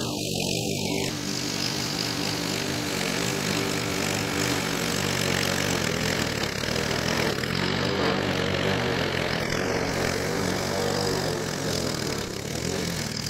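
Gasoline walk-behind push lawn mower running steadily as it cuts through tall, overgrown grass.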